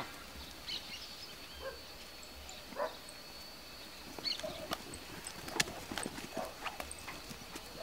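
Faint, scattered footfalls and light taps of sheep and a dog moving on loose dirt, with a few faint short calls in between.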